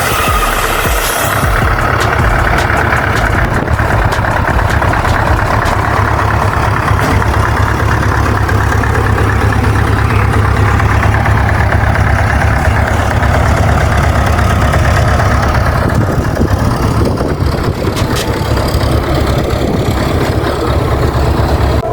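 Scania 143's 14-litre V8 diesel engine running steadily.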